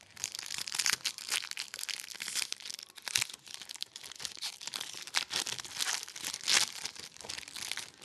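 Foil wrapper of a hockey card pack being torn open and crinkled by hand: a dense run of crackles and rips, loudest in a few sharp crackles spread through it.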